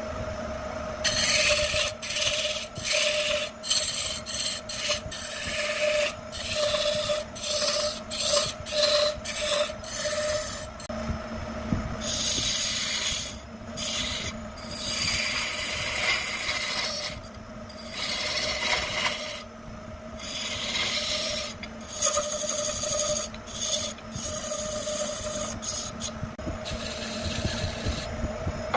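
Wood lathe turning a spinning wood blank while a hand-held turning tool cuts into it: a scraping, shearing noise that comes and goes, over the steady hum of the lathe's electric motor. The cuts are short quick strokes for the first ten seconds or so, then longer passes.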